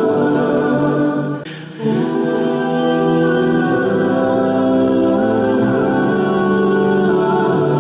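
Background music of slow sung notes held long, choir-like, with a brief drop about a second and a half in.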